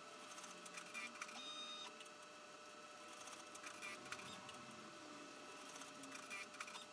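Baby Lock Enterprise multi-needle embroidery machine stitching out a design, running steadily and faintly with rapid light clicking from the needle and hoop drive. A brief higher tone sounds about a second and a half in.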